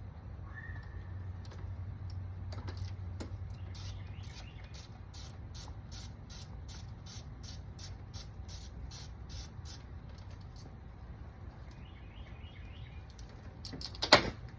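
Ratchet wrench clicking in a steady run of quick strokes, about two to three clicks a second, while spark plugs are worked on a 2010 Mercedes ML350, followed by one loud sharp metallic knock near the end.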